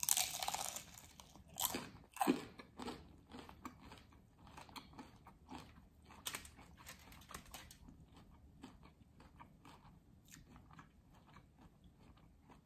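Biting into a crispy taco with a fried corn tortilla shell: a loud crunch at the start and two more big crunches a couple of seconds in, then steady crunchy chewing.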